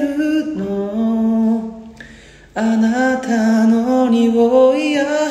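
A young man singing unaccompanied, one voice on long held notes that slide between pitches. The singing falls away for about half a second around two seconds in, then takes up the next phrase.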